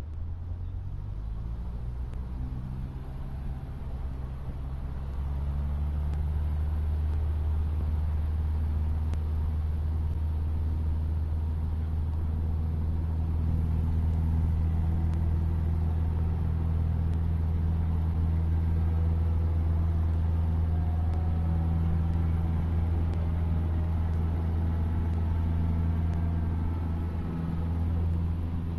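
Cessna 152's four-cylinder Lycoming piston engine and propeller running. The note climbs in pitch and loudness over the first several seconds as power comes up, then holds steady.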